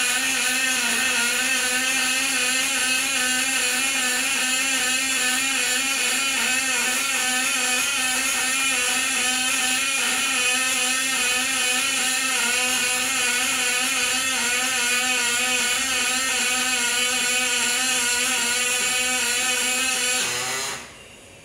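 Robotic MIG welding arc on aluminium, a steady buzzing tone with a crackling hiss, as the torch runs a seam on a radiator; it cuts off sharply near the end as the arc stops.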